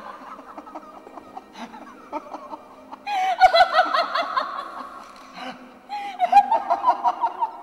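A person laughing in choppy, high-pitched bursts, in two loud fits: one about three seconds in and one near the end. A faint steady low drone runs underneath.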